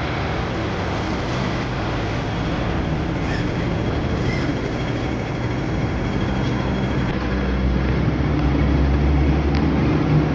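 Busy city street traffic: a steady wash of engine and road noise, with a low engine rumble growing louder over the last few seconds, as from a bus close by.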